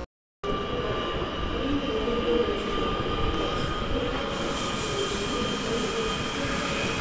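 Train in a station: steady running rumble with a few steady high tones over it. It begins after a brief silent break.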